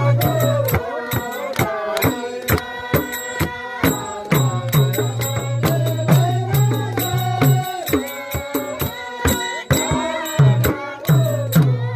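Nepali folk music with a steady rhythm of drum strikes and a wavering melody line over it.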